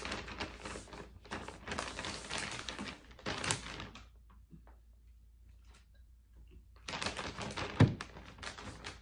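Rustling and crinkling of clothes and a plastic vacuum compression bag being handled and packed, in two spells with a pause between, and a single sharp thump near the end.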